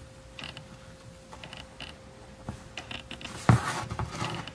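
A OnePlus 7 Pro smartphone is handled and set down on a cardboard-covered bench. A few short creaks and scuffs come first, then a sharp thump about three and a half seconds in as it is laid flat, followed by brief rubbing against the cardboard. A faint steady hum runs underneath.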